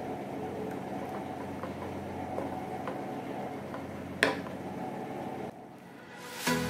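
Thick corn soup simmering in a pan on a gas stove: a steady hiss with small scattered pops while a wooden spoon stirs it, and one sharp knock about four seconds in. The sound drops away shortly after, and background music fades in at the end.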